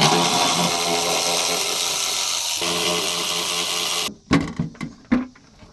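Power drill running steadily for about four seconds, backing out a fender fastener, its pitch shifting slightly partway through before it stops abruptly. A few light clicks and knocks follow.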